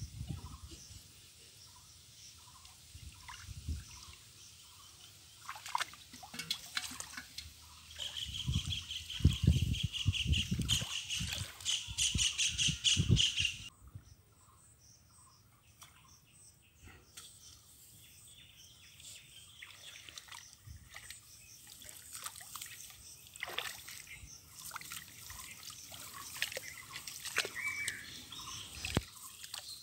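Hands splashing and sloshing in shallow muddy paddy water while groping for fish, with scattered small splashes and trickles. A louder stretch of heavier splashing with a steady high-pitched hiss runs for several seconds near the middle and cuts off abruptly.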